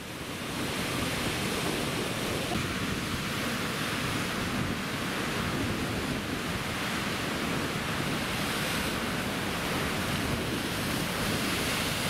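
Heavy storm surf breaking over rock ledges and churning as foam, a dense steady wash of water noise with wind buffeting the microphone.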